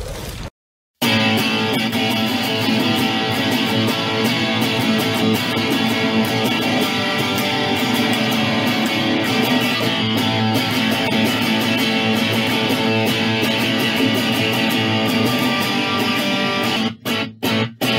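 Intro music led by strummed guitar. It cuts out briefly about a second in, then runs steadily, with a few quick stops near the end.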